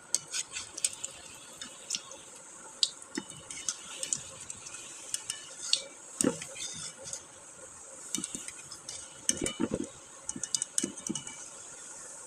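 A metal spoon stirring in cookware, with irregular clinks and scrapes throughout.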